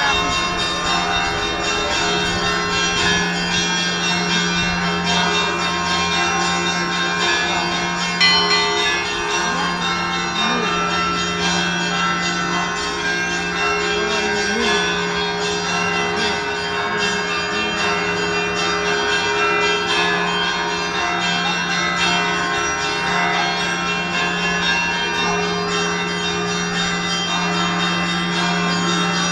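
Russian Orthodox monastery bells of the Zaikonospassky Monastery ringing together, many bells of different pitches overlapping over a steady low hum from the deepest bell. A louder stroke comes about eight seconds in.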